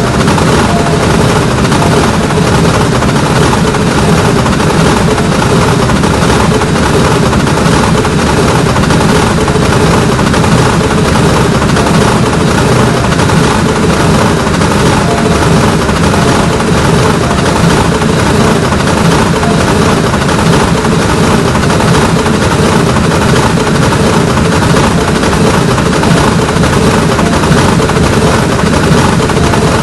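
A train rolling past close by: a loud, steady, rapid clatter of wheels over the rail and crossing that runs on without a break.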